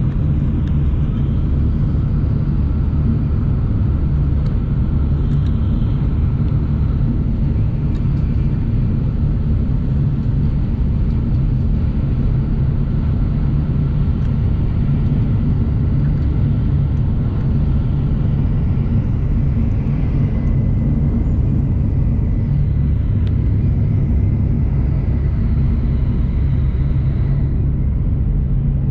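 Steady low rumble of a Shinkansen bullet train running at speed, heard from inside the passenger cabin, with a faint high steady tone for several seconds after the middle.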